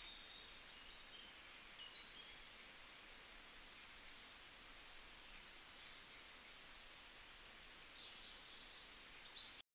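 Faint outdoor ambience with small birds chirping: short high-pitched calls and quick falling trills scattered throughout, busiest about four and six seconds in.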